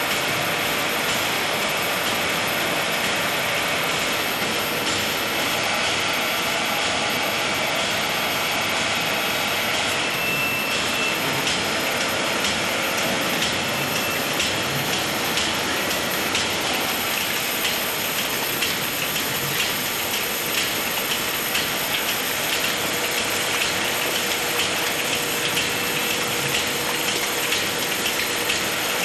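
Egg-breaking line's conveyors running steadily, with a dense patter of light clicks and clatter from eggs and moving parts that grows busier about halfway through.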